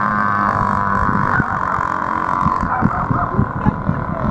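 Radio-controlled speedboat's motor running flat out, a steady high-pitched whine that thins out about a second and a half in as the boat moves away across the floodwater. Irregular low thumps in the second half.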